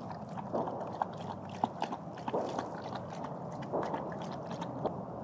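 Catahoula leopard dog lapping water, a run of short, irregular wet clicks a few times a second.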